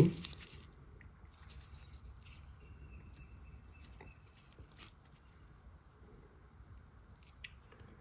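Faint scattered clicks and small handling noises from a large Swiss Army knife being turned over and handled in the hands.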